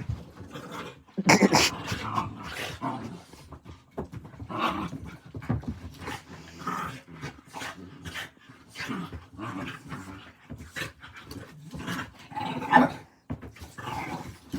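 A puppy and an older dog play-fighting, growling in irregular bursts. There is a louder cry about a second in and another near the end.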